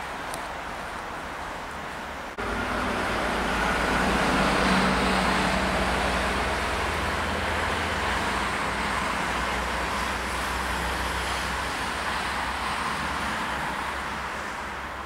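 Road traffic noise: a motor vehicle's engine hum and tyre noise passing by. It sets in abruptly about two seconds in, is loudest a couple of seconds later, then slowly fades.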